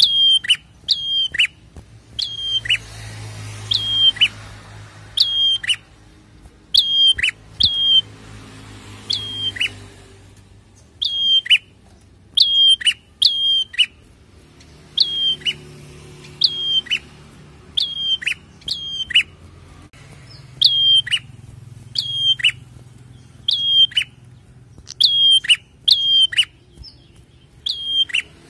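Caged prenjak (prinia) calling: short, sharp, high notes that each drop quickly in pitch. They come in quick pairs and triplets about once a second.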